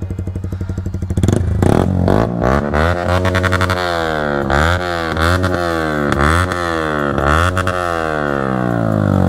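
Sport motorcycle with the dB killer taken out of its exhaust, running loud at first and then revved in a quick series of throttle blips, each rising and falling in pitch.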